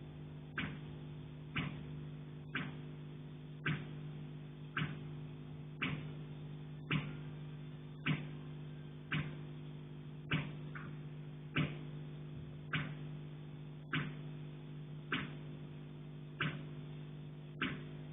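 Sharp knocking on a pipe, repeating at an even pace of about one knock a second, heard over a steady low hum. The uploader takes it for someone in the attic hitting the pipe.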